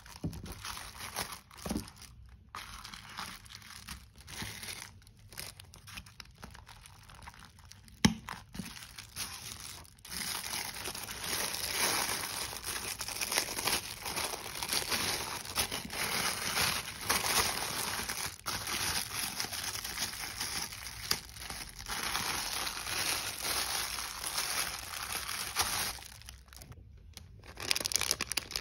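Clear plastic packaging crinkling as it is handled: thin cellophane wrap and a clear plastic bag rustling, with a binder in clear plastic covers being slid into the bag. The crinkling is sparse, with a few sharp clicks, for about the first third, then turns dense and continuous, with a brief pause near the end.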